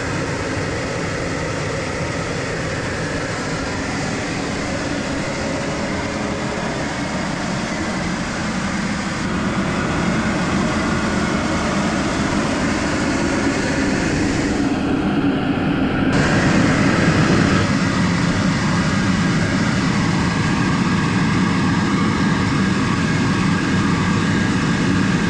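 Tractor engine running steadily, a little louder from about ten seconds in.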